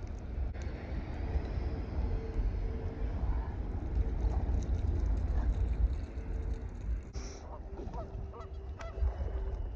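Wind rumbling on the microphone over a faint steady hum, with a few short calls rising and falling near the end.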